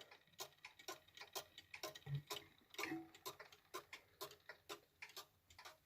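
Junghans Vienna-style wall clock's pendulum escapement ticking faintly in quick, even ticks, about three a second. The escapement pallets are freshly oiled.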